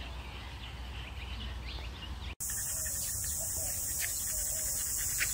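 Outdoor yard ambience with small birds chirping in short, repeated calls. After an abrupt cut about two seconds in, a steady high-pitched hiss takes over, with faint chirps beneath it.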